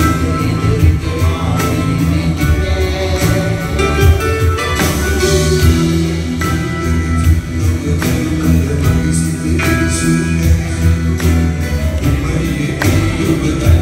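Live band playing an acoustic arrangement: a man singing over strummed acoustic guitar and hand percussion.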